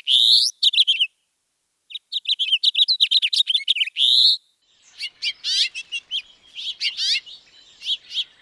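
House finch song: two long, rapid warbling phrases separated by a short pause, the second ending in a drawn-out burry note. From about halfway through comes a different recording of quick, sweeping chirps over a faint hiss.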